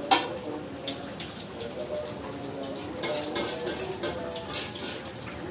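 Bakwan (vegetable fritters) frying in oil in a wok, a steady sizzle, with a sharp utensil click just after the start and a few lighter clinks a little past halfway.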